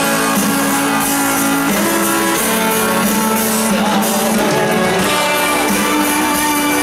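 Live rock band playing an instrumental passage through the concert PA, with electric guitar prominent in a run of held, stepping notes.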